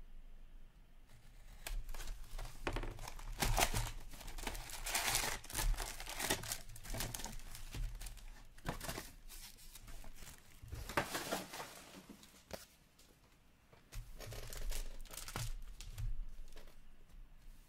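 Foil trading-card pack wrappers crinkling and rustling as a stack of packs is handled, in several bursts with a short lull a little past the middle.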